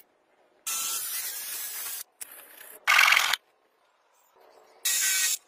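Three bursts of hissing noise, each starting and stopping abruptly: a longer one about a second in, a louder short one around the middle, and another near the end.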